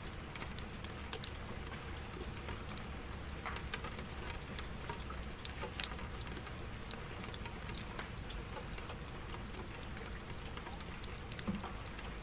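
Steady rain falling on a surface, with scattered individual drops ticking throughout and a louder drop hit about halfway through.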